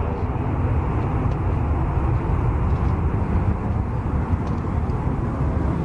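Panavia Tornado's twin RB199 turbofans at full afterburner on takeoff and climb-out: steady, loud jet noise with a heavy low rumble.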